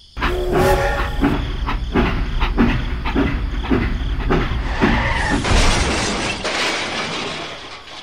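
Steam train sound effect: rhythmic chuffing at about three beats a second, then a steady hiss of steam from about five seconds in that fades away near the end.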